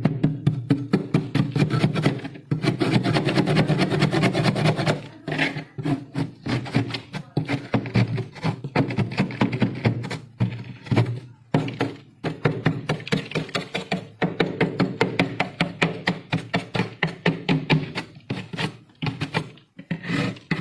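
Metal blade scraping and shaving thick frost off a freezer's walls in rapid, repeated strokes, with a few short pauses.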